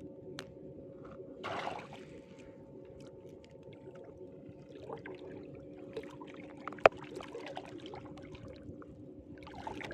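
Water splashing and dripping as a gill net is hauled by hand, with a short splash about a second and a half in and a single sharp knock near seven seconds. A faint steady hum runs underneath.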